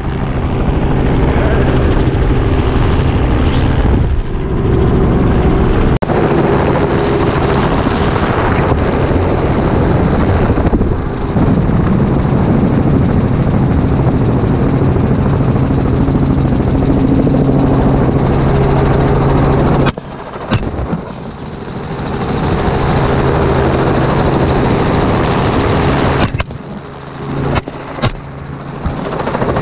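Helicopter engine and rotor running steadily, broken by a handful of rifle shots: one about six seconds in, two around twenty seconds, and three close together near the end. The helicopter sound drops in level after the shots around twenty seconds.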